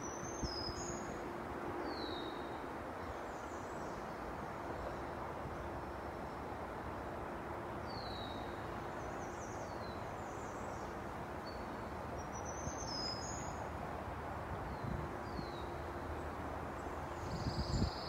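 Warblers singing from the treetops: short, high, thin song phrases of a few falling notes, repeated every few seconds over a steady background hiss.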